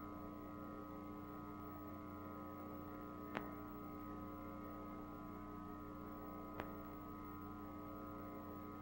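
Faint, steady electrical hum with several steady higher tones above it, broken by two faint clicks about three seconds apart. There is no voice or music.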